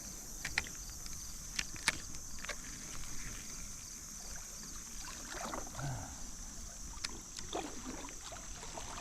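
Water sloshing and swishing around legs as someone wades through a waist-deep creek, with a few faint sharp clicks in the first few seconds.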